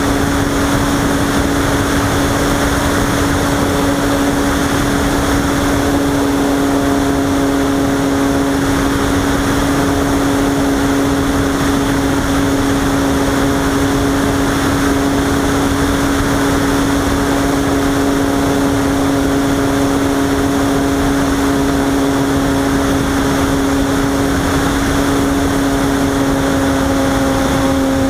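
Robbe Arcus Sport radio-controlled model glider in flight, heard through its onboard FPV camera: a steady hum with rushing air noise.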